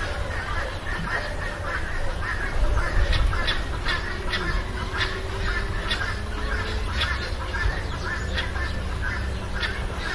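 A flock of waterfowl calling: many short calls, overlapping and repeating, over a steady low rumble.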